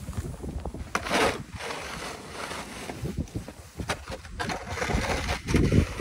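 Snowstorm wind buffeting the microphone in uneven gusts, a low rumble with hiss that swells loudest about a second in.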